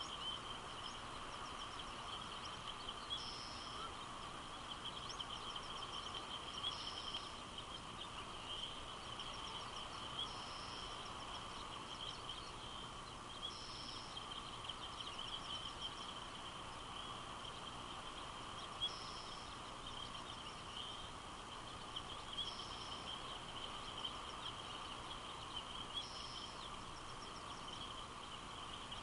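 Faint outdoor nature ambience: a steady high chirring runs throughout, and a short higher-pitched call repeats about every three and a half seconds.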